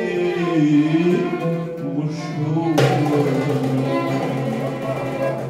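A man's amplified singing voice ends a phrase over plucked-string accompaniment about a second in, and the instruments carry on alone, striking a fuller chord about halfway through and holding it.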